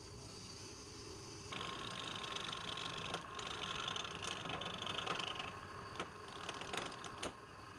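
Wood lathe running with a steady whine, and a turning tool cutting the spinning wood as a rough hiss for about four seconds, starting a second and a half in. Several sharp clicks near the end.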